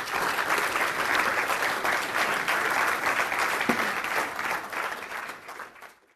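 Audience applauding: dense, steady clapping that fades in the last second and then cuts off.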